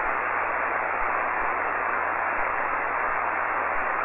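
Shortwave amateur radio receiver on the 40 m band giving a steady, even hiss of band noise: the open frequency with no station transmitting.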